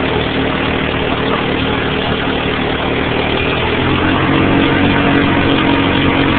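Four-wheeler (ATV) engine running steadily under load while towing, over a constant rush of noise; the engine speeds up a little about four seconds in.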